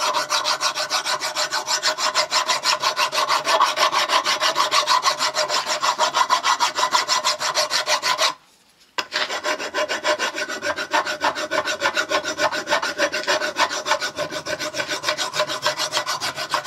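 Hand filing: a flat steel file rasps back and forth over a steel sleeve clamped in a bench vise, in quick strokes of about four a second. Metal is being taken off all round the sleeve because it is still too tight to go into its bore. The strokes break off briefly a little past halfway, then carry on.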